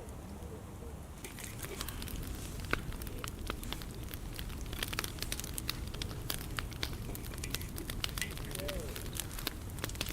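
Wood fire crackling, with many irregular small pops and snaps starting about a second in and one louder pop a little later.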